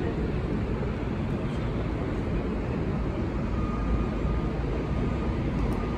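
Steady low rumble and hiss of an elevated subway station, with a faint thin steady tone coming in a little past halfway.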